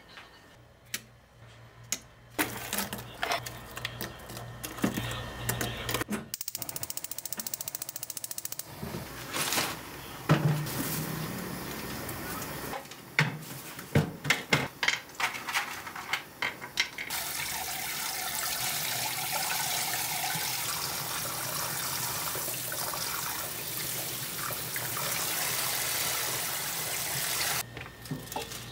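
Kitchen handling sounds, a scatter of clicks and knocks of containers and utensils being moved. About two-thirds of the way in, tap water starts running steadily into a plastic colander of garlic chives being rinsed, and it stops shortly before the end.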